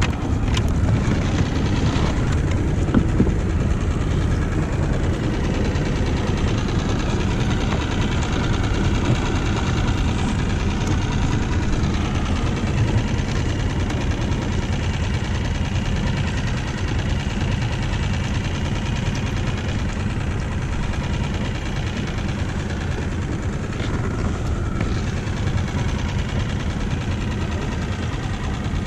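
Small outboard motor idling with a steady low rumble.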